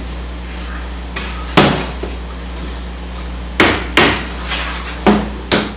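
Hammer knocking the corner joints of a wooden canvas stretcher-bar frame to drive the tenons home: four loud, sharp knocks at uneven intervals with a few lighter taps between, over a steady low hum.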